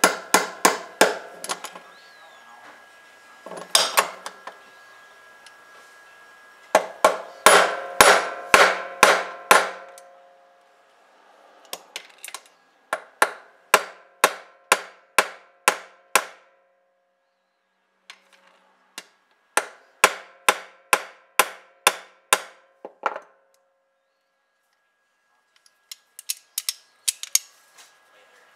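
Hammer striking metal in runs of quick blows, about three a second, each blow leaving a short metallic ring. Short pauses break up the runs.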